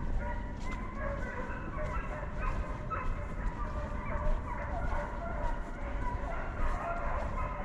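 A pack of hunting dogs barking and baying, several voices overlapping without a break, over a steady low rumble.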